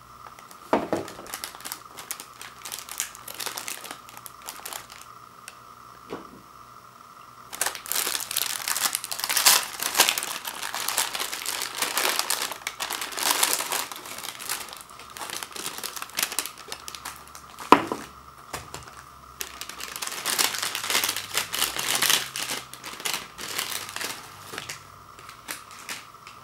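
Thin plastic cracker sleeve crinkling and rustling as it is handled and Ritz crackers are tipped out of it into a bowl, in two long stretches of crackling. A single sharp knock stands out between them.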